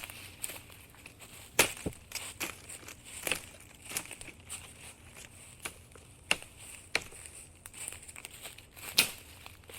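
Grass being cut by hand: irregular crisp snips and crunches of grass blades, about one every half second to second, with two louder cuts, one about one and a half seconds in and one near the end. No mower engine is heard.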